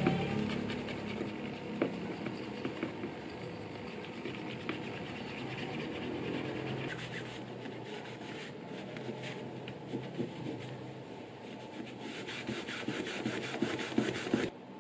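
Rapid back-and-forth rubbing of a small grey abrasive pad along the cut edges of tan leather pieces, smoothing the edges. The quick scraping strokes come thicker and faster near the end, then stop abruptly.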